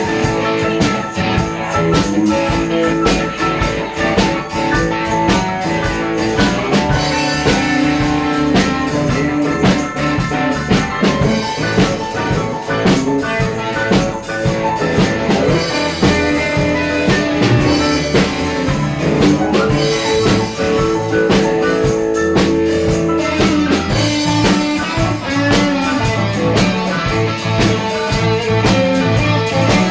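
Live band playing an instrumental passage with guitar and drum kit, a steady beat.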